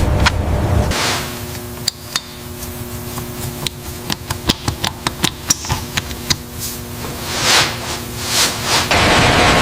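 Sharp metal taps and knocks from hand tools working on metal parts, irregular and several a second, with a couple of brief swishes near the end. A steady loud rushing noise starts just before the end.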